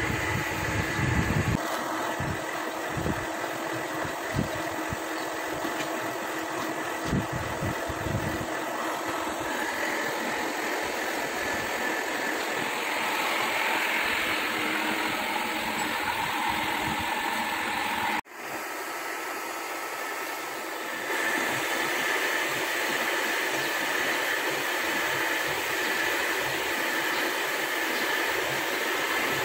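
Metal lathe running steadily while turning down the spray-welded coating on a hydraulic screw shaft, with a few low thumps in the first eight seconds.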